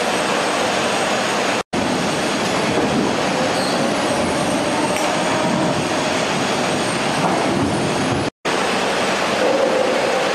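Steady running noise of an apple sorting and packing line, its conveyors and rollers rattling as they carry apples. The sound drops out briefly twice, once under two seconds in and again about eight seconds in.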